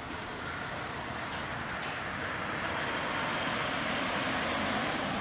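A car passing close by, its noise building steadily and loudest near the end.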